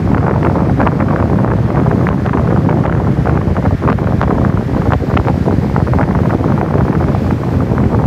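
Strong typhoon wind buffeting the microphone over heavy surf breaking on a rocky shore. It is a loud, unbroken rush with many short crackles from the gusts.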